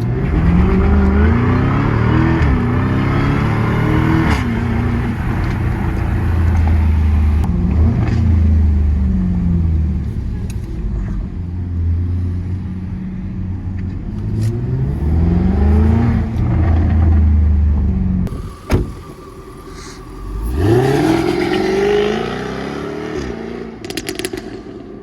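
Jaguar F-Type R's supercharged 5.0-litre V8 accelerating hard through the gears: the engine note climbs, drops back at each upshift and climbs again, several times over. A sharp knock comes past the middle, the engine goes quieter for a moment, then revs up once more.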